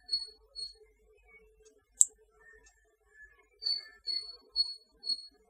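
Soft handling of a clear TPU silicone phone case, with a single sharp click about two seconds in. Short, high chirps at one steady pitch come twice near the start and four times in the last two seconds.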